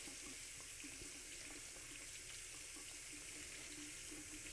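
Water running steadily from a sink tap onto a paper towel held under it to wet it.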